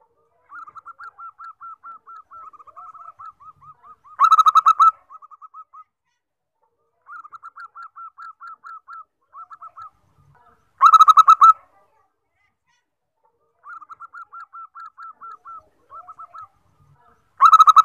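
Zebra dove (perkutut) cooing its song three times, about every six to seven seconds. Each phrase is a quick run of soft rolling coos followed by a short, much louder burst of coos.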